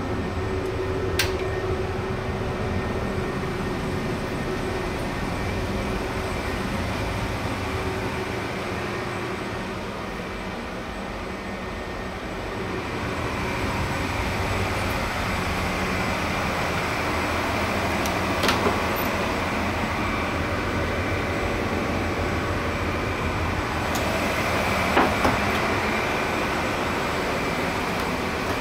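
Steady hum of a car ferry's machinery heard from inside the vessel, with a cabinet door latch clicking shut about a second in and a few short knocks later on.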